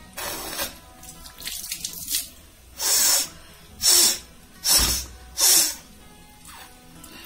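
A person forcefully blowing their nose to clear it, a series of short hissing blasts with the four loudest coming close together in the middle.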